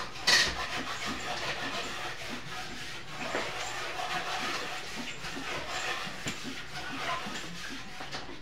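Light kitchen handling noise from hand-wrapping lumpia Shanghai: soft rustling of thin spring-roll wrappers with scattered small clicks and taps on a plate and bowl, and one sharper knock just after the start.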